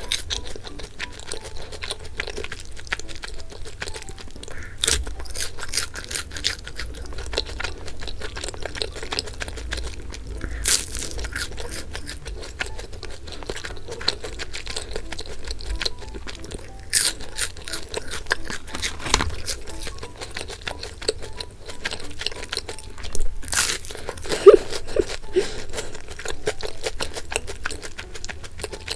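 Bungeoppang, fish-shaped pastries with red-bean and custard-cream filling, being torn apart and eaten: crisp crust crackling and crunching, with a run of small snaps and bites and a few louder ones scattered throughout.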